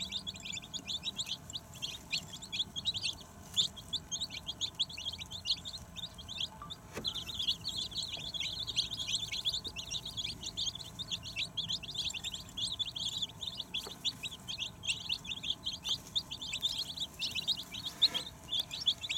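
A brood of young chicks peeping: many short, high peeps overlapping in a rapid, continuous chatter, thinning out for a moment about five seconds in.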